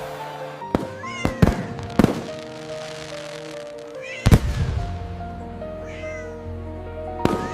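Cartoon cat meows over background music, with a few sharp bangs in between; the loudest bang comes a little past the middle.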